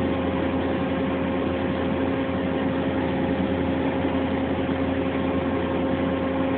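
Machine-shop equipment running with a steady hum: a constant mid-pitched tone over a low drone and hiss.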